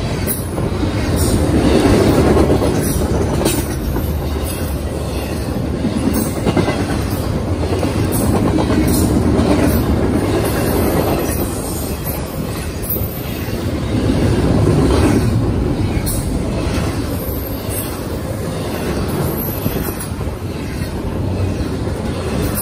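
Double-stack intermodal freight cars rolling past: a loud, steady rumble of steel wheels on rail, with scattered sharp clacks from the wheels, swelling three times as cars go by.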